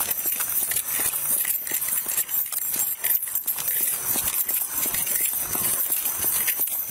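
Hurried footsteps on pavement with clothing and gear rubbing and knocking against a chest-worn police body camera, over a steady hiss.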